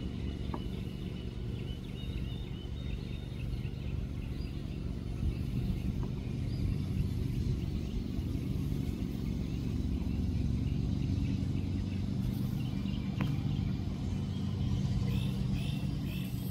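John Deere X380 lawn tractor engine running steadily while mowing tall, overgrown grass.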